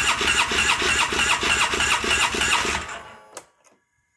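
Polaris Sportsman 800 ATV's twin-cylinder engine cranking on its electric starter with an even, rhythmic chug, not catching. The cranking stops about three seconds in. The engine is fuel-starved after its new fuel pump ran dry and the fuel pressure is still too low.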